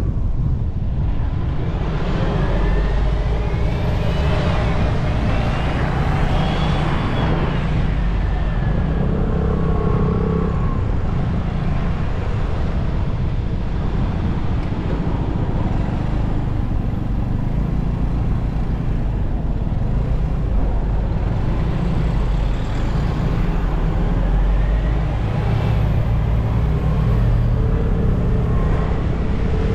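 Steady wind and road rumble while riding a scooter in traffic, with a whine that rises and falls a few seconds in and again near the end.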